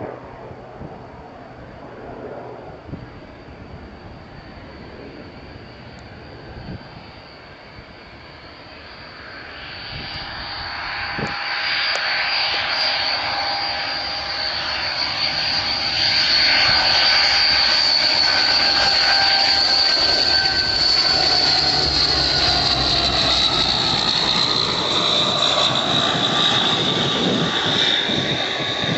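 Hawker Siddeley Andover C1's two Rolls-Royce Dart turboprop engines passing low overhead: a high steady whine with lower engine tones underneath, growing louder over several seconds as the aircraft approaches, then falling slightly in pitch as it goes past.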